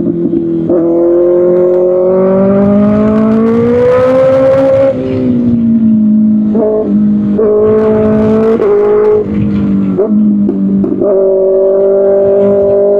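Kawasaki Ninja ZX-6R inline-four sport bike engine through an Arrow Pro Race exhaust, pulling up through the revs to about five seconds in, then dropping back. The note breaks off briefly several times before settling into a steady pitch near the end.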